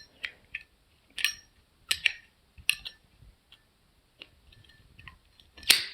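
Zippo pocket lighter being worked: a series of sharp metallic clicks and clinks from the hinged lid and the loose insert in its case, about eight in all, the loudest near the end. The insert sits loose and rides up, so the lid will not shut.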